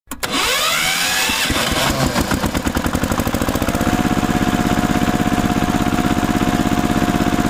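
Tractor engine sound effect: the engine starts with sweeping changes in pitch over the first couple of seconds, then settles into a steady, fast putt-putt idle.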